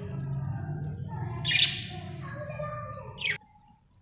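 Budgerigar chirping and warbling, with a loud sharp chirp about one and a half seconds in and a shorter one about three seconds in. It breaks off suddenly just after, together with a low hum underneath.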